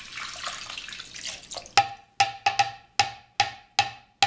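Warm milk mixture pouring from a saucepan into a mixing bowl, then about eight quick ringing taps as the emptied pan is knocked against the bowl to shake out the last drips, the last tap the loudest.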